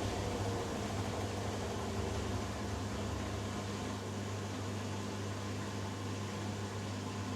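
Hoover Dynamic Next DXA610IW3 front-loading washing machine running its spin cycle, a steady low hum from the motor and drum.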